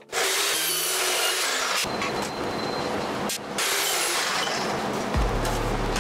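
DeWalt abrasive chop saw cutting through steel tubing: a loud, steady grinding hiss from the abrasive wheel, with two brief dips. Deep bass music comes in about five seconds in.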